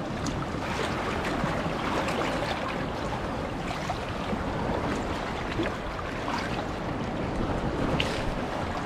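Sea water sloshing and splashing around a man wading waist-deep as he gathers up a wet cast net by hand, over a steady rush of water, with a few small sharp splashes.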